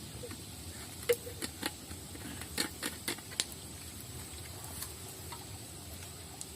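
Open wood fire crackling: about a dozen irregular sharp pops and snaps, busiest in the first half, then sparse.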